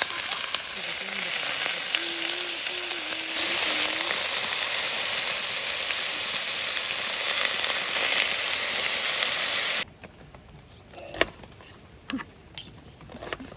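Food frying in a hot pan, a steady sizzle that cuts off suddenly about ten seconds in, followed by a few light knocks and clicks.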